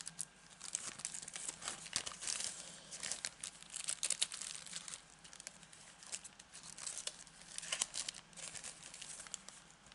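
Thin plastic sleeve and a transparent stamp sheet being handled, crinkling and rustling in irregular short crackles.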